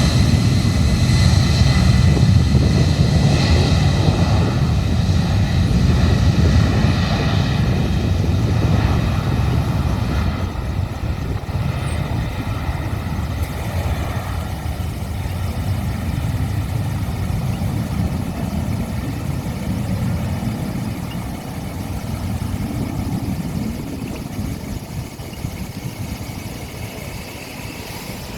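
Boeing 767-300's twin jet engines running with a deep rumble and a high whine; the whine dies away about halfway through and the rumble slowly fades as the aircraft moves away.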